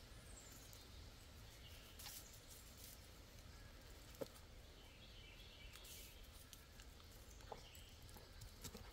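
Near silence: faint woodland ambience with a few distant bird chirps and the odd soft click.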